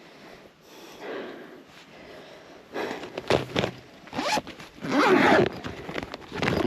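Several bursts of quick rasping and rustling, loudest from about three seconds in and again about five seconds in.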